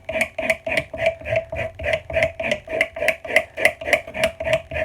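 Serrated Ginsu knife drawn rapidly back and forth through a Block sharpener, about three to four even strokes a second, each with a short ringing tone from the blade.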